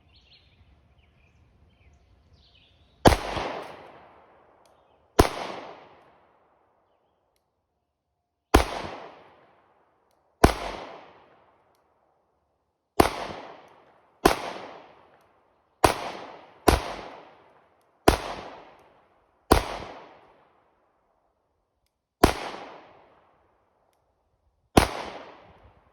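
Sig Sauer P365X 9mm pistol firing full metal jacket rounds, twelve shots at an uneven, deliberate pace, each crack trailing off in an echo lasting about a second.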